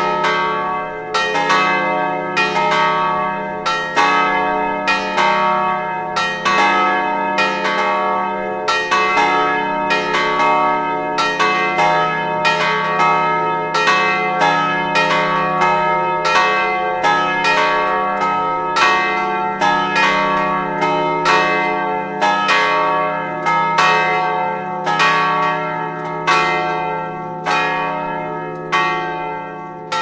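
Several large church bells swinging on their wheels in an open steel bell tower and ringing together, strikes overlapping at about three every two seconds over a continuous layered ringing hum.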